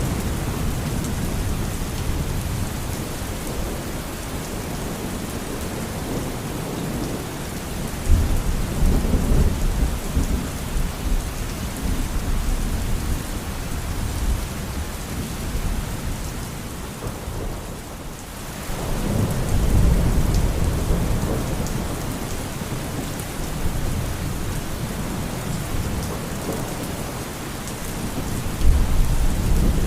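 Steady rain with rolling thunder: deep rumbles swell about a quarter of the way in, again about two-thirds of the way in, and once more near the end.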